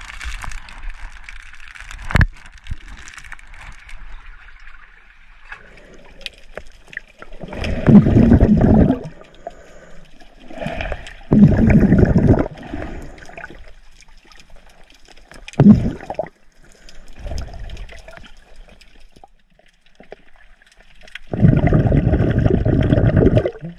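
Sea water gurgling and churning around a submerged camera in several loud bursts of a second or two, a few seconds apart, as a snorkeler swims.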